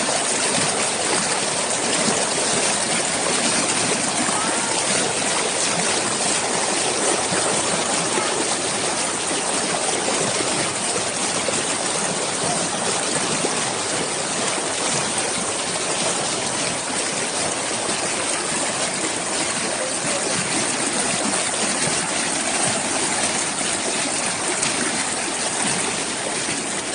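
Water of a stream flowing, a steady, even rushing sound that holds throughout.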